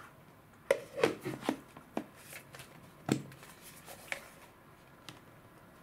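A hard plastic candy container and its snap-on cap-shaped plastic lid being handled and fitted together: a quick run of sharp plastic clicks and knocks, the loudest just under a second in and another single sharp knock about three seconds in.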